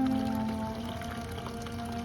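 Background music of soft, held notes that shift slowly from one to the next.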